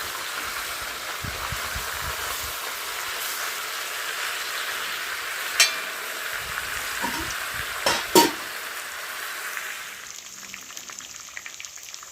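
Chicken back pieces browning in hot oil in a Dutch pot, a steady sizzle, with three sharp knocks against the pot about halfway through as the meat is stirred. The sizzle turns quieter near the end.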